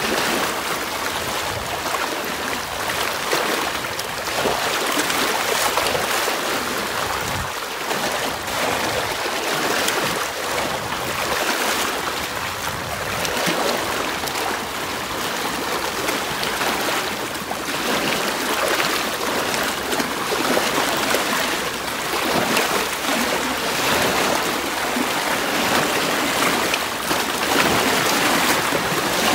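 Small sea waves washing over a rocky shore and through shallow water: a steady rush of surf that swells and eases.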